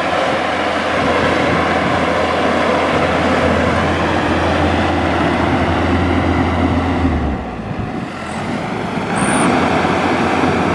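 Maxxi Bimo 102L rice combine harvester running under load as it cuts and threshes standing rice, a steady engine drone with machinery noise over it. The low drone drops out a little after seven seconds, and the machine noise comes back about two seconds later.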